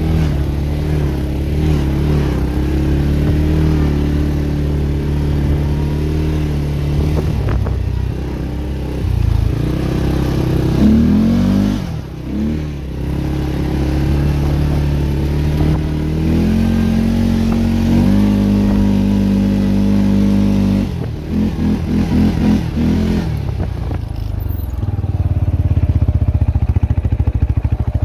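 CFMoto CForce 400 ATV engine running while riding, its pitch rising and falling as the throttle is opened and eased off, with a stretch of choppy on-off throttle about three quarters of the way through.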